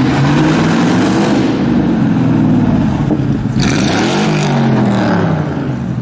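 Mercedes-Benz G-Class engine revving and accelerating, its pitch rising and falling a few times.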